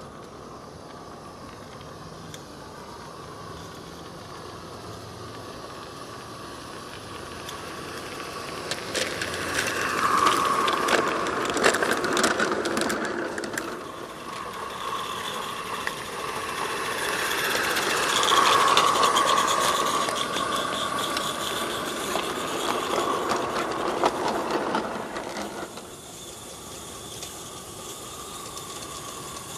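G-scale live steam locomotive and its wagons running past close by: steam hissing, with rapid clicks and a rattle from the wheels and rolling stock. The sound swells twice as the train comes near, about ten and about eighteen seconds in, and falls away a few seconds before the end.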